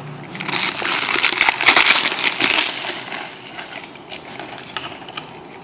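Close handling noise: a dense run of scratching and light clicking, loudest from about half a second to three seconds in, then fainter.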